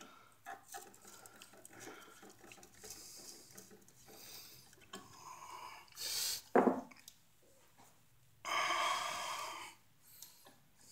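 Faint small clicks of a screwdriver tightening a terminal screw on an electrical receptacle, then a short sharp noise about six seconds in and a breath-like rush lasting about a second later on.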